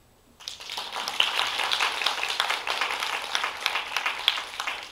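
Applause: many people clapping, starting about half a second in and dying away near the end.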